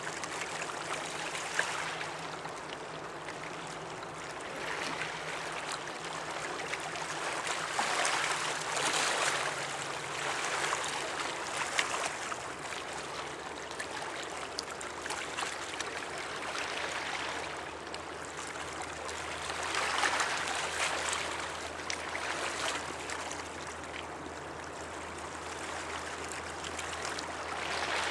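Water rushing and washing along the riverbank, swelling and easing every several seconds, over a low steady drone from the passing container ship.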